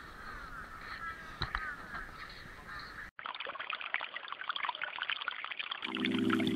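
Outdoor ambience with faint bird calls, cut off suddenly about three seconds in by a dense crackling hiss. Near the end, music with steady sustained tones begins.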